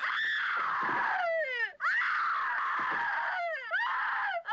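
A woman screaming in terror. There are two long, high screams, each sliding down in pitch as it trails off, and a third begins right at the end.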